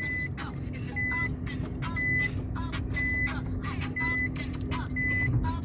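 A car's warning chime beeping inside the cabin, a short high beep repeating about once a second over the hum of the running car.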